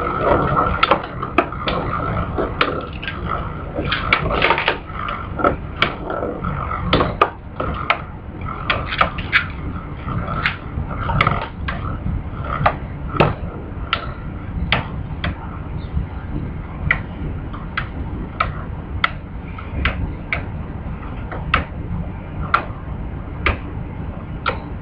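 Two Beyblade spinning tops, Galaxy Pegasus and Lightning L-Drago, battling in a plastic stadium: sharp clacks as they strike each other, coming fast and irregular at first over a steady scraping hum and a thin whine. From about halfway the clacks fall into an even rhythm of roughly one a second.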